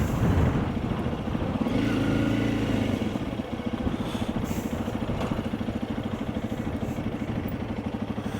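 Honda CRF 300 Rally's single-cylinder engine running at low revs. The revs rise and fall once about two seconds in, then settle into a steady, even beat.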